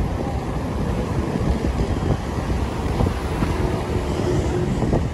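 Street traffic with wind buffeting the microphone while moving along the road: a steady rumble of engines and air, with motorbikes going by.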